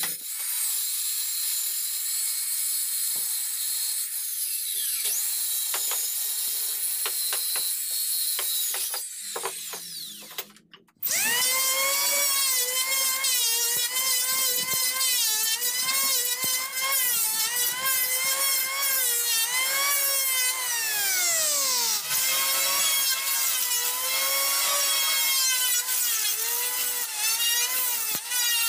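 Electric circular saw cutting through teak boards, a mostly high-pitched, noisy cut. About ten seconds in it gives way to a handheld electric power planer shaving a teak panel: a strong whine that sags and recovers again and again as the blades bite into the wood. Around twenty seconds the planer winds down in a long falling whine, then starts up again about two seconds later.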